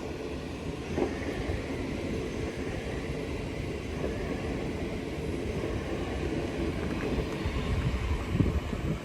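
A train moving on the tracks with a steady rumble, a few sharp knocks, and loudness building slightly toward the end.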